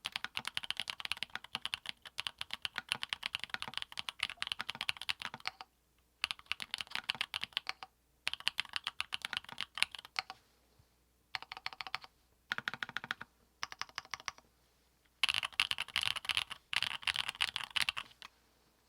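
Typing on a custom 60% mechanical keyboard with lubed Everglide Dark Jade tactile switches, an aluminium plate and PBT keycaps: fast runs of keystrokes in bursts of a few seconds, broken by short pauses.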